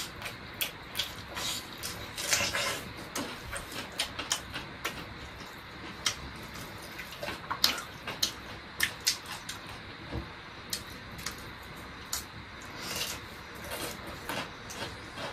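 Close-up eating sounds of two people eating rice and curry by hand from metal plates: irregular small clicks and smacks of chewing and of fingers on the plates, with one dull thump about ten seconds in.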